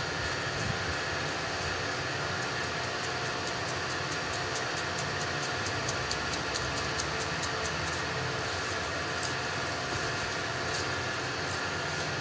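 Knife chopping watermelon flesh against the rind, a run of quick light clicks that is thickest in the middle, over a steady background hum and rumble of street traffic.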